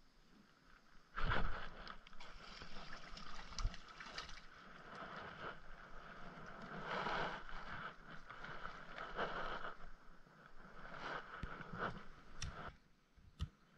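Handling noises from landing a small crappie on a fishing rod: a sudden loud noise about a second in, then uneven surges of rustling and splashing as the fish is brought up and handled.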